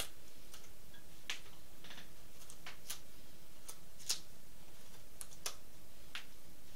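Hand carving knife taking short, careful shaving cuts in the pine bill of a duck decoy: irregular small clicks and scrapes, with one sharper click about four seconds in.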